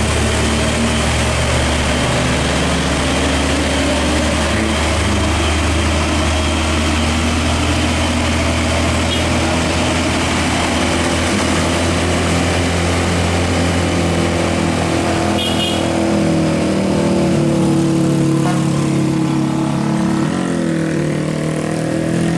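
Heavy truck's diesel engine labouring up a steep hill: a steady low drone, with its engine notes rising and shifting over the last several seconds.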